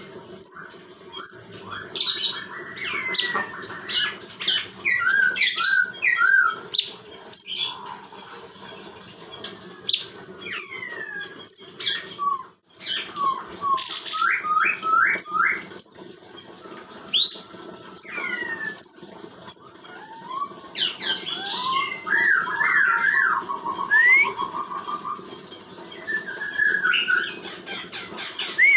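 Cucak cungkok, a leafbird, singing a varied, chattering song of sharp chirps, squeaky upward and downward sweeps and short rapid warbles, with brief gaps between phrases. This is the kind of song kept as master song for tutoring other songbirds.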